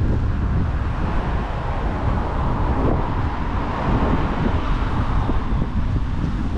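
Wind rumbling on the microphone, with the hiss of a car passing along the street that swells in the middle and fades.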